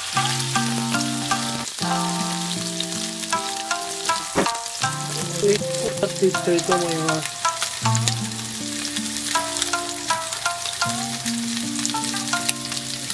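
Skinless pork belly blocks sizzling in oil in a frying pan as they are seared brown on all sides, with a steady fine crackling. Background music with held notes plays over it.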